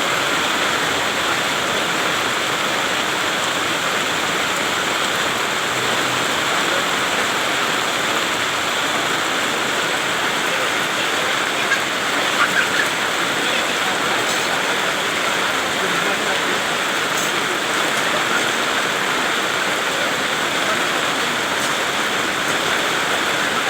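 Heavy rain falling steadily, an even hiss, with a few short louder taps about halfway through.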